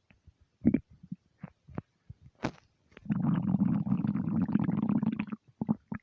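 Empty stomach rumbling: scattered short gurgles and pops, then a long continuous gurgling rumble from about three seconds in that lasts a little over two seconds, followed by more short gurgles.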